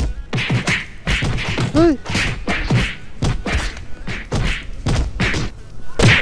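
Cartoon punch sound effects: a rapid string of whacks and thuds, about three a second, with a brief rising-and-falling tone about two seconds in.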